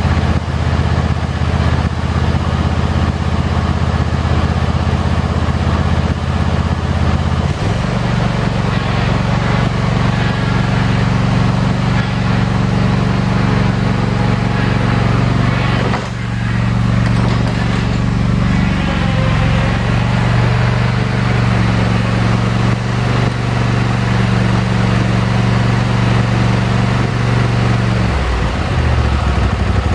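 Small engine idling as it warms up after a full-choke cold start, running steadily; its speed steps up about seven seconds in and changes again near the end.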